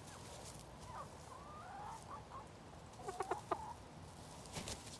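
Backyard hens clucking: a few soft calls that rise and fall in pitch, then a quick run of sharp, louder clucks about three seconds in.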